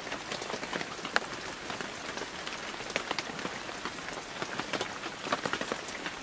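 Rain falling on water: a steady hiss of rain with many separate sharp drop ticks scattered through it.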